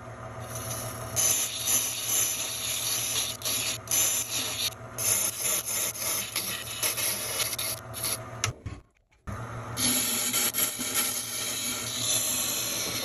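Walnut blank turning on a wood lathe while a thin parting tool cuts grooves into it: a steady scraping of the tool on the wood over the low hum of the lathe motor. The sound drops out briefly about nine seconds in, then resumes.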